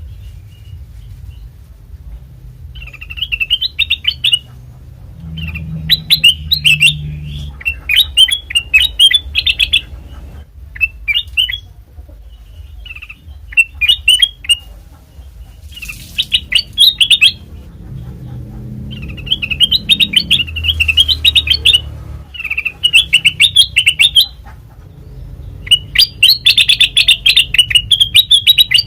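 Kutilang emas bulbul singing in bouts of rapid, bright chirping phrases, each one to three seconds long with short pauses between, over a steady low hum.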